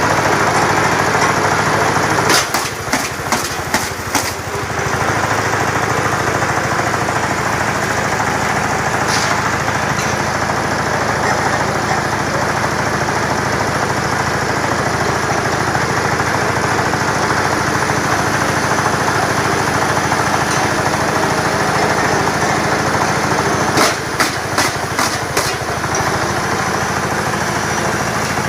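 Small engine powering a bamboo-splitting machine, running steadily. Twice, about two seconds in and again near the end, the engine sound dips for a couple of seconds amid a quick run of sharp cracks as bamboo is split.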